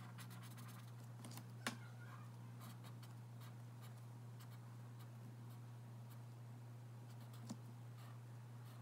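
Faint scratching of a black marker pen drawing short strokes on sketchbook paper, with a small tap twice, over a steady low hum.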